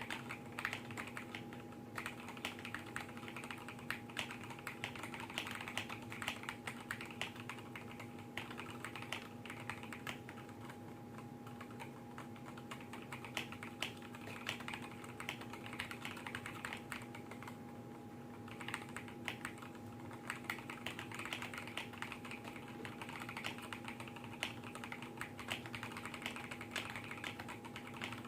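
Continuous typing on a custom 60% mechanical keyboard with stock Gateron Yellow KS-3 linear switches, a polycarbonate plate, a frosted acrylic sandwich case and XDA/ZDA keycaps: a quick, uneven stream of keystroke clacks. A steady hum runs underneath.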